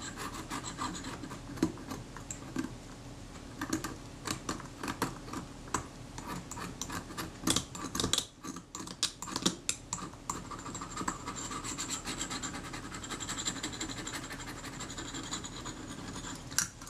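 Back edge of a scalpel blade scraping dried adhesive off the somewhat oxidized aluminium casting of a Kodak Retina IIIS camera body: quick, irregular scratching strokes with a brief lull about halfway through.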